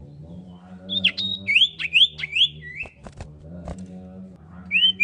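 Common iora singing: a quick run of about six sharp, downward-slurred whistled notes, then another run starting near the end. A few sharp clicks fall between the runs, over a steady low background hum.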